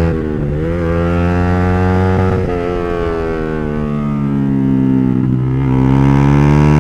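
Yamaha R15's single-cylinder four-stroke engine running hard under the rider, heard from on board. The note rises and falls through the corners, dipping briefly about half a second, two and a half and five and a half seconds in.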